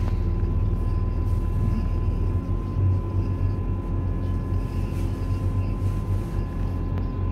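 Inside the cabin of a FEVE series 2900 diesel multiple unit standing at a station platform: the diesel engine idling with a steady low hum, over a faint steady high whine.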